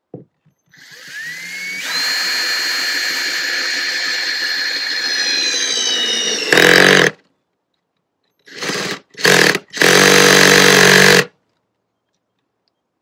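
Cordless drill boring holes through a wooden cabinet panel. The motor whines up to speed about a second in and runs steadily, its pitch sagging slightly as the bit works, then gives one short louder burst; after a pause come three brief spurts of the trigger. The drill's battery is dying.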